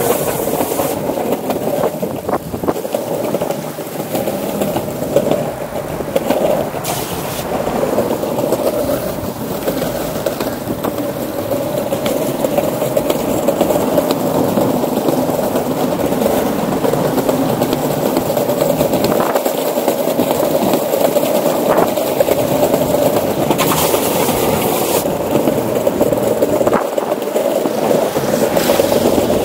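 Skateboard wheels rolling steadily over a wooden plank boardwalk, a continuous rolling noise.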